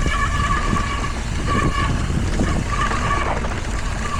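Mountain bike rolling fast down a dirt trail: a steady rumble of wind on the microphone and tyres on the ground, with the disc brakes squealing in a high steady tone three times as they are applied, on pads that the rider reckons need replacing.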